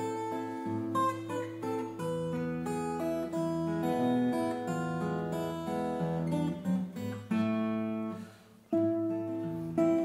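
Duo of a classical guitar and an acoustic guitar playing a tune, plucked melody over chords. The playing falls away briefly near the end, then comes back in.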